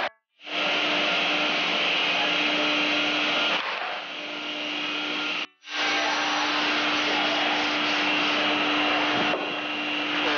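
Large workshop electric fan running: a steady rush of air over a low, even motor hum, dropping out briefly near the start and again about halfway through.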